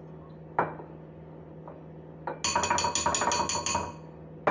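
Spoon beating rapidly against a ceramic bowl while stirring a liquid sauce: a quick run of clinks for about a second and a half in the second half, after a single knock about half a second in.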